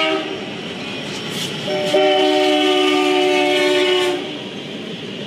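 Canadian National freight locomotive's air horn blowing a chord of several notes while sounding for a grade crossing, over the rumble of the passing train. A blast ends just after the start, and a long blast follows from just under two seconds in to about four seconds in. The sound is picked up by a trackside railcam microphone.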